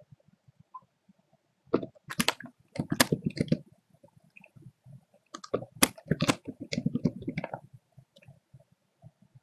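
Computer keyboard typing: two short runs of rapid keystrokes, a couple of seconds apart.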